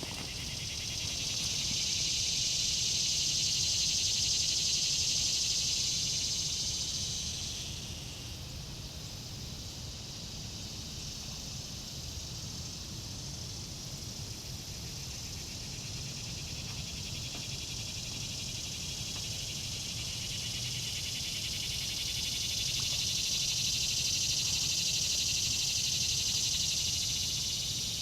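Chorus of insects buzzing in a high, dense drone that swells loud for several seconds, eases off, then swells again near the end.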